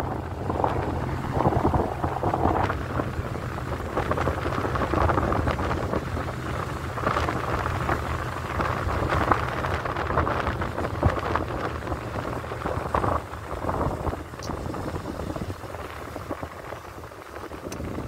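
Car driving slowly over a snow-covered street: a steady low engine hum under the crackling hiss of tyres on packed snow, growing quieter in the last few seconds.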